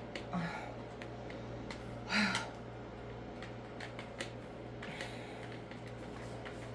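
Scattered light clicks and taps over a steady low hum, with a short louder rustle about two seconds in.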